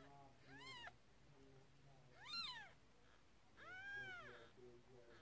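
Three short, high-pitched cat mews, each rising then falling in pitch, spaced about a second and a half apart.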